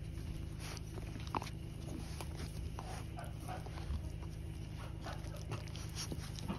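Puppy making small faint sounds while being petted, over a steady low hum, with a sharp click about a second and a half in.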